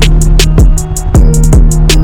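Background music: an electronic beat with a deep kick drum, sharp hi-hats and a steady bass line.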